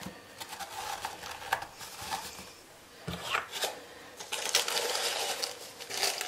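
A spoon clicking and scraping in a tub of baking powder, then denser rustling from about four seconds in as the rolled paper cone funnel in the bottle neck is shaken to get the powder down.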